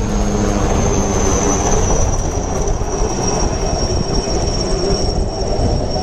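Helicopter flying overhead and away: steady rotor and engine noise with a thin high turbine whine that slowly falls a little in pitch.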